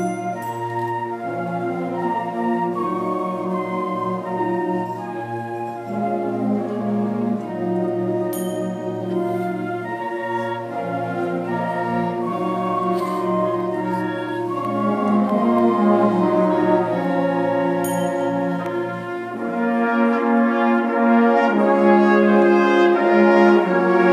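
High school symphonic band playing, brass instruments to the fore, with chords changing every second or two over a held low bass note. The low note drops out about twenty seconds in and the band grows louder toward the end.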